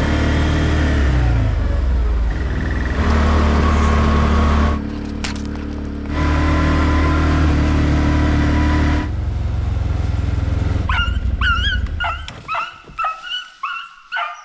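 ODES 650 ATV engine running, its note stepping up and down a few times, then dropping away. About eleven seconds in, a small Jagdterrier starts barking in a quick run of high yelps, about two a second.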